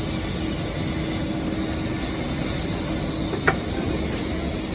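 Forklift running while its hydraulics drive a multi-purpose clamp attachment's arms open: a steady noisy hiss with a low steady hum beneath it, and one sharp click about three and a half seconds in.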